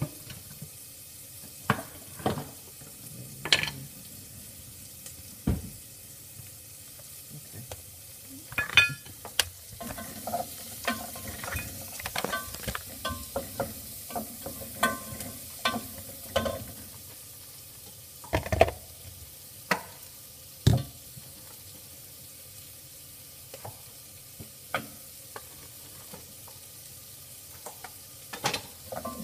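A metal spoon scraping and tapping in a plastic tub of hard ice cream as it is scooped, with irregular clicks and a few louder knocks.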